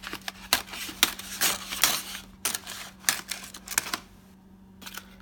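A package being opened by hand: quick irregular clicks, taps and rustles of packaging, going quiet about four seconds in.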